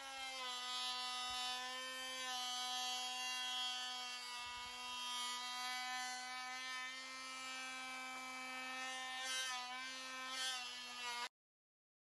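DeWalt DCS356 cordless oscillating multi-tool running with a wood blade plunge-cutting into a wooden beam: a steady buzzing drone that stops abruptly near the end.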